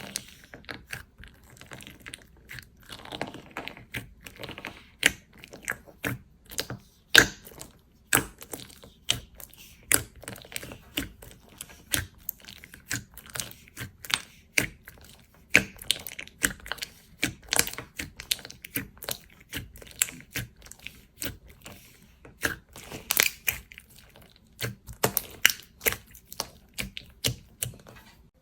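Slime being squeezed and poked by hand, giving a run of sharp, irregular clicks and pops, several a second, with soft squishing between them.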